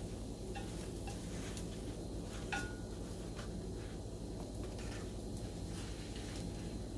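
Wooden chopsticks clicking and scraping lightly against a frying pan as toasted bread rolls are turned and moved, a few scattered taps with one brief ringing clink, over a steady low hum.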